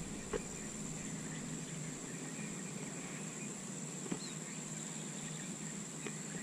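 Steady high-pitched drone of insects over quiet outdoor ambience, with a few faint clicks.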